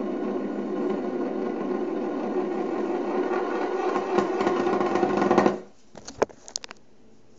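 A golf-ball-handled screwdriver spinning like a top on its metal bit tip on a wooden tabletop, a steady buzzing hum that turns into a rattle as it wobbles. It stops suddenly about five and a half seconds in, followed by a few light clicks and knocks as it tips over.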